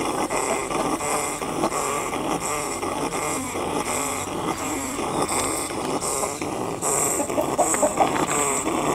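Chickens clucking low and pecking at the ground close by. Behind them runs a high-pitched pulsing sound, a little more than one pulse a second.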